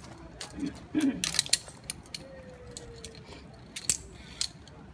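Steel carabiners and a zip-line trolley clinking and clicking as they are handled and clipped onto the cable: a cluster of sharp metal clicks a little over a second in, then single clicks near the end.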